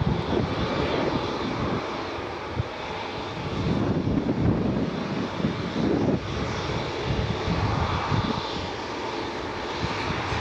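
Airbus A320neo's two CFM LEAP-1A turbofan engines at takeoff thrust, a steady rumbling jet noise with a crackly low end as the airliner lifts off and climbs away.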